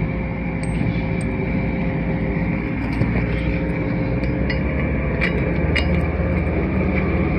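Lorry engine idling steadily, with a few light metallic clicks and clinks, the loudest pair about five and a half seconds in.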